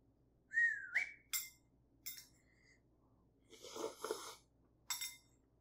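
Hot soup noodles being eaten from chopsticks: a short whistling breath about half a second in, a few sharp clicks, then a slurp of noodles about three and a half seconds in.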